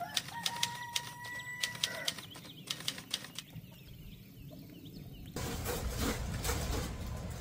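Frozen packages being shifted and handled while a chicken is taken out of a freezer: a run of light clicks, knocks and rustles, with a faint steady tone during the first two seconds. About five seconds in, a steady low rushing noise starts.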